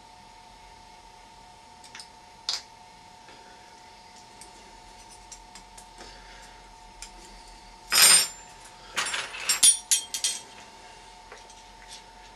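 Metal spoons clinking and rattling: a single clink a couple of seconds in, then a short scrape and a quick run of clinks about two-thirds through.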